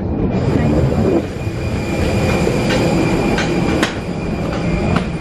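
Airliner noise at the cabin door: a steady rumble with a faint high whine, and four sharp clicks about three to four seconds in.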